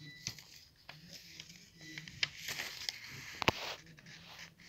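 A sheet of lined notebook paper being folded and creased by hand: soft rustling and swishes with a few crisp ticks, the sharpest about three and a half seconds in.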